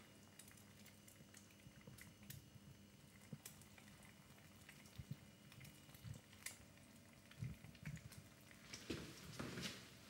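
Near silence: quiet room tone with scattered faint taps and soft knocks, a little more frequent in the second half.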